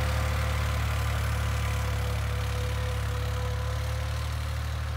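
Farm tractor engine running steadily as it pulls a shaft-driven fertilizer spreader, a constant low drone with a faint steady whine on top.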